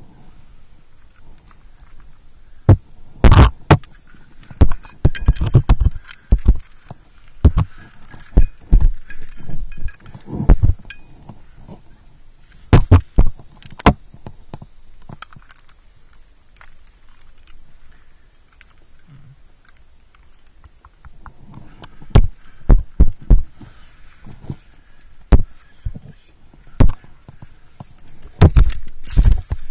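Climbing gear clinking and knocking: metal cams and carabiners on a trad rack jangling against each other and the rock, in irregular clusters of sharp clicks and heavier thuds, with a quieter stretch in the middle.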